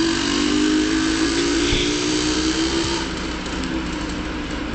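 Motor vehicle running: a steady low engine hum with road noise, which eases off about three seconds in.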